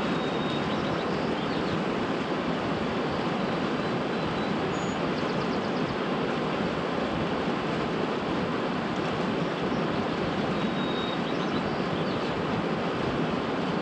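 Steady rushing outdoor noise with no gusts or breaks, with a few faint short high chirps over it.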